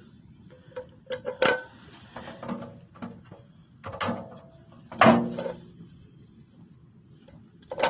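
Several sharp knocks and clunks of hard parts being handled, the loudest about five seconds in.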